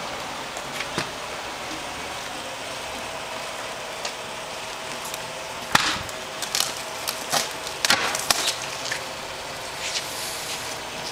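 Sharp knocks and clatter from a hand pallet jack and cardboard boxes being handled, bunched together in the middle and strongest a little past halfway, over a steady background hiss.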